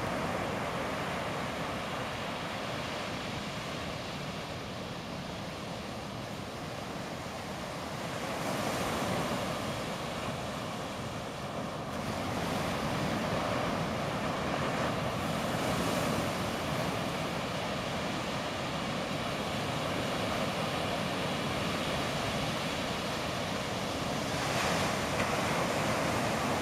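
Ocean surf: a continuous rush of waves breaking and washing in, swelling louder every few seconds as each wave breaks.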